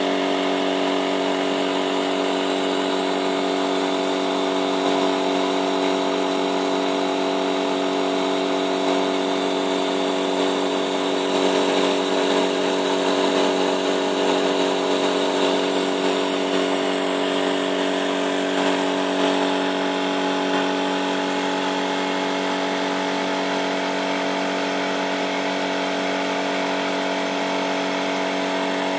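3D-printed model turbofan running on compressed air: a steady tone of several fixed pitches from the spinning rotors over a hiss of rushing air, swelling slightly for a few seconds midway.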